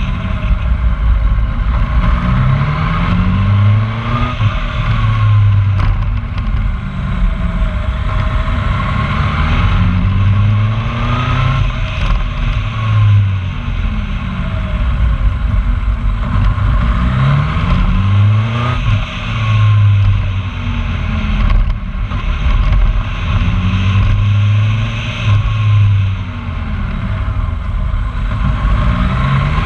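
Road vehicle's engine driving along: its pitch rises several times as it pulls through the gears and drops back at each change, over steady wind and road noise on an outside-mounted microphone.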